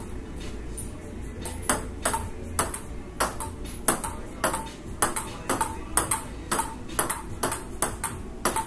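Table-tennis rally: a ping-pong ball clicking back and forth off the paddles and a folding table, a quick even run of about two hits a second that starts a couple of seconds in.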